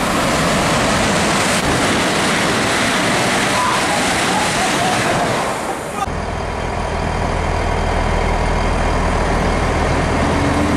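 A train passing through the station with a loud, even rushing noise for about six seconds. Then a GWR Class 800 IET rolls slowly alongside the platform with a steady low hum.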